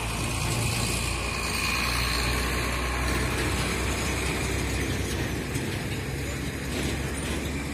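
Steady outdoor city background noise: a low rumble under an even hiss.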